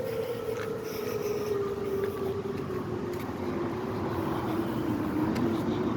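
Federal Signal Modulator civil defense siren sounding during a test. Its wail slides slowly down in pitch, then starts to climb again near the end, over steady background noise.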